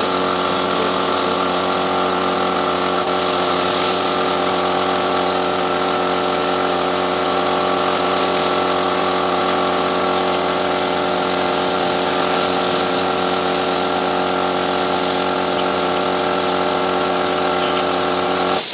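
Air compressor running steadily with an even hum, under the hiss of a compressed-air paint spray gun spraying paint.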